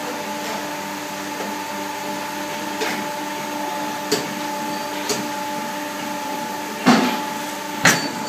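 Hot plate plastic welding machine running with a steady hum and a constant high whine, with scattered clicks and knocks from its tooling. There are two louder knocks near the end as the fixture moves apart.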